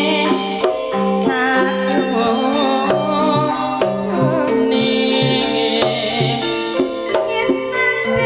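Live Javanese gamelan (karawitan) music for tayub dancing: sustained ringing pitched notes over a low alternating note, with scattered drum strokes and a wavering high melody line.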